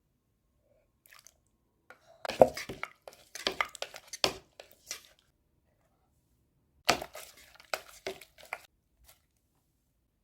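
Close crunching of crisp food being bitten and chewed, in two runs of sharp crackles with a pause of about two seconds between them.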